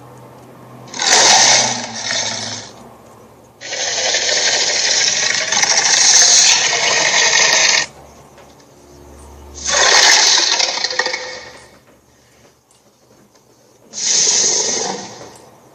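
Four bursts of harsh noise, the longest lasting about four seconds, several starting and stopping abruptly; homemade sound effects.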